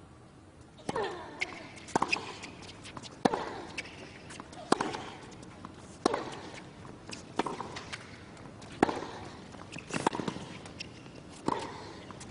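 Tennis rally: racquet strikes on the ball, evenly spaced about every second and a half, with ball bounces and footwork squeaks between them and a short grunt with several of the strokes.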